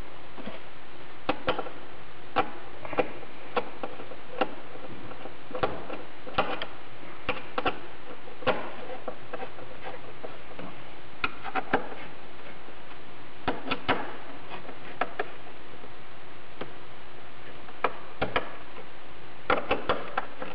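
Irregular clicks and small knocks as the subwoofer enclosure's mounting bolts are turned down by hand, the enclosure's gasket compressing against the car body.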